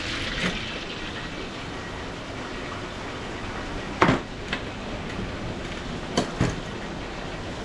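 Sharp metal clanks of a stainless steel tray with a wire rack and tongs being set down and handled on a stainless steel counter: a loud one about four seconds in, a lighter one just after, and two more around six seconds. Under them a steady background hiss.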